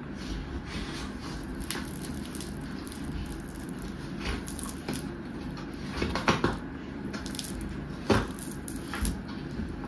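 Close-up eating sounds: fried catla fish being pulled apart with the fingers and chewed, with scattered short crunches and mouth smacks, the sharpest about six and eight seconds in.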